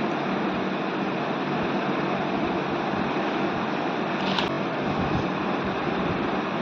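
Steady rushing noise, with one short, sharp click about four and a half seconds in.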